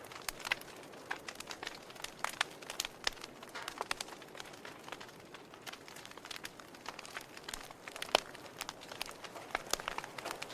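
Wood fire crackling in a fireplace: a steady soft hiss under many irregular snaps and pops, one sharp pop standing out about eight seconds in.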